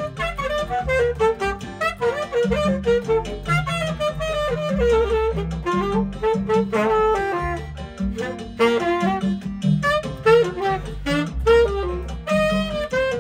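Saxophone playing a flowing melody in short phrases over a backing track that has bass notes and chords underneath.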